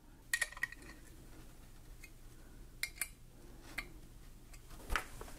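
Light clicks and taps of a hex key and a laptop stand being handled while a divider's slot screw is adjusted. There are a handful of short ticks, one near the start with a brief ringing tone, and a louder knock near the end.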